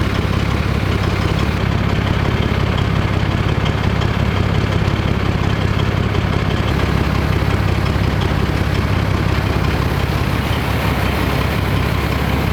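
A BMP-1's UTD-20 V6 diesel engine idling steadily and loudly. Its oil system is pressurised and pushing oil out of the breather, which the mechanic thinks could be a blocked or crimped breather hose, or a mechanical problem in the engine.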